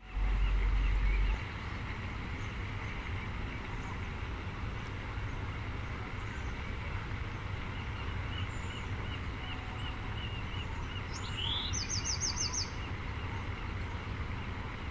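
A flock of feeding birds calling faintly and continuously over a steady low rumble of wind, with a louder quick run of about six high chirps near the end. A loud low wind blast hits the microphone for about the first second.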